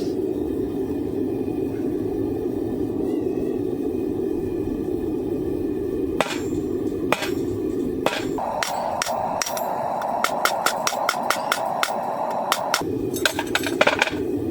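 Hand hammer striking steel on an anvil while forging a coil-spring knife blank: a couple of single blows, then a quick run of ringing strikes for the last several seconds. A steady rushing noise runs underneath.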